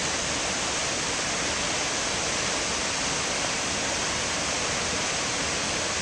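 Waterfall rushing steadily, an unbroken hiss of falling water that does not change.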